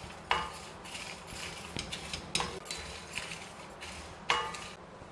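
Spatula stirring and scraping peppercorns, cumin seeds and dried red chillies around a dry pan as they roast, in quick irregular strokes with three sharper knocks against the pan.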